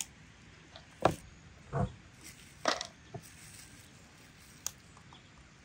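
A metal spoon clicking and knocking lightly against a metal pan as the mixture in it is worked, about six separate taps spread over a few seconds.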